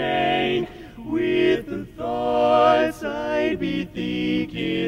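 Male barbershop quartet singing a cappella in close four-part harmony. A held chord breaks off about half a second in, followed by short sung phrases with brief gaps between them.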